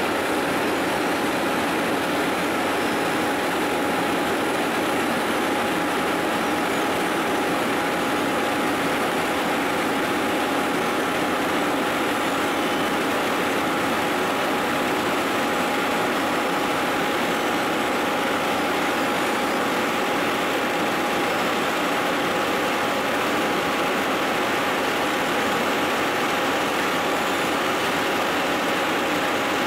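Steady running of heavy diesel machinery, an asphalt paver and a tipper semi-trailer truck whose body is tipping up to unload into the paver's hopper. A steady whine runs through the drone.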